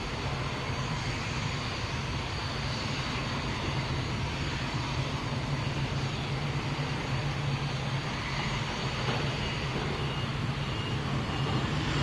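Large vehicle's engine running steadily, with a reversing alarm beeping at an even pace from about eight seconds in.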